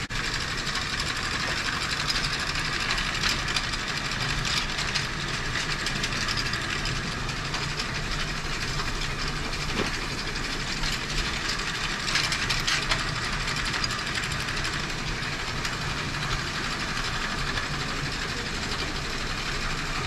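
Hay bale elevator running, its chain and slats clattering steadily as it carries square hay bales up the incline.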